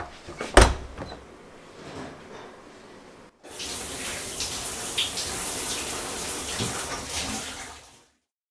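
A single loud thump about half a second in. A few seconds later a tap runs water steadily into a sink, fading out near the end.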